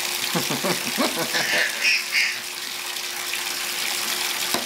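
Bath tap running steadily, a stream of water splashing into a bathtub as it fills.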